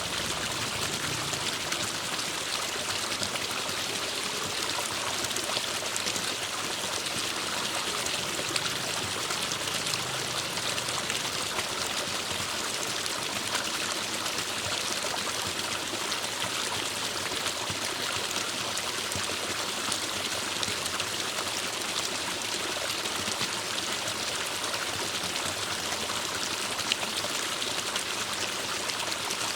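Forest stream flowing steadily, a continuous rush of running water with a splashy, trickling texture.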